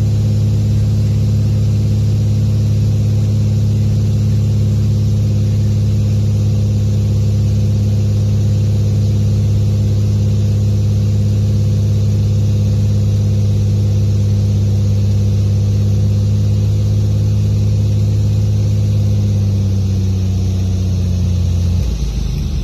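Navion light aircraft's piston engine and propeller droning steadily, heard inside the cockpit on approach to a grass strip. Near the end the engine note drops, and a rough, uneven rumble starts as the plane reaches the strip.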